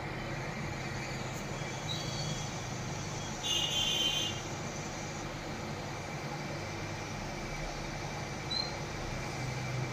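Hot air rework gun blowing steadily onto a phone circuit board, heating the network IC. A brief high-pitched squeak comes about three and a half seconds in.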